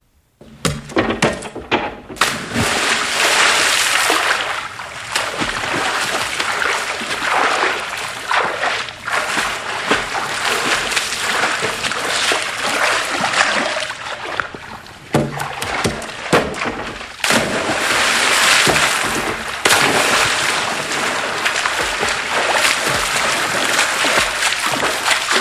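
Electronic keyboard's water sound effect: an uneven rushing, splashing noise that starts abruptly about half a second in and surges and dips irregularly throughout.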